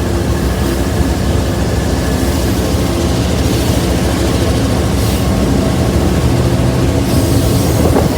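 Passenger train running along the track: a loud, steady rumble of the cars and wheels on the rails.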